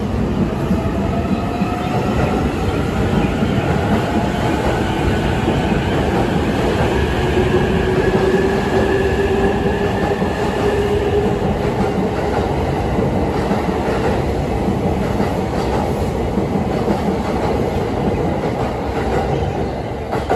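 JR East E657 series electric train pulling out of the station, its motor whine gliding slowly up in pitch as it gathers speed. Wheels clack over the rail joints as the cars roll past close by.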